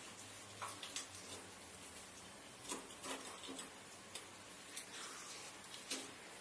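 Chinese cleaver slicing the rib bones away from a raw grass carp fillet on a wooden chopping board: faint, irregular clicks and scrapes of the blade against bone and board.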